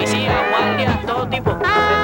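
Upbeat music with horns, a walking bass and a steady drum beat, in a swing or ska style.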